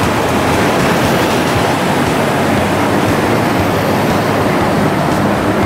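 Steady street noise of a Toden Arakawa Line 8800-series tram running on street track among road traffic: an even noise with no distinct tones.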